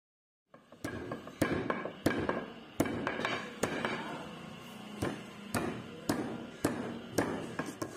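Repeated sharp knocks, about two a second, as the axe head is driven down onto its new wooden handle and wedges.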